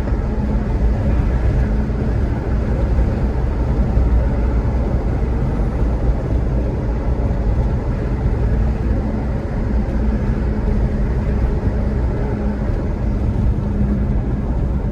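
A car driving at a steady speed, its engine and road noise making a constant low drone.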